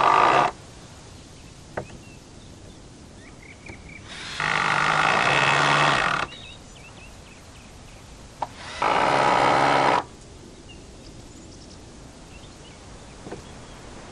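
Handheld electric power tool running in three short trigger bursts: one that stops about half a second in, a two-second run about four seconds in, and a run of about a second near the nine-second mark. Each burst starts and stops abruptly at a steady motor pitch.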